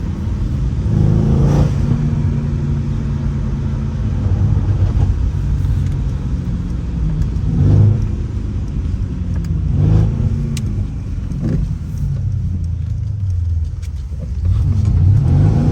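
Stage 2 tuned Mercedes-AMG C63's V8 engine revving and pulling hard, its note swelling and easing several times, with short loud peaks about a second and a half, eight and ten seconds in.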